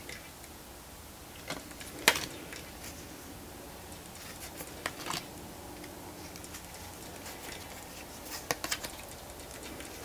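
Tarot cards being moved through a hand-held deck: scattered short clicks and snaps of card stock, the loudest about two seconds in and a small cluster near the end, over a quiet room.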